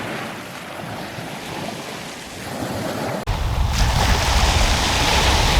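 Sea waves washing on the shore. About three seconds in, the sound cuts to a louder stretch with wind buffeting the microphone and a wave breaking.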